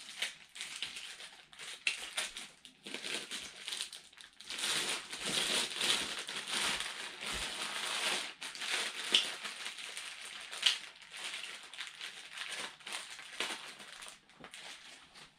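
Pink anti-static plastic bag crinkling and rustling as a boxed network switch is unwrapped and pulled out of it. The crackling is busiest through the middle and thins out near the end.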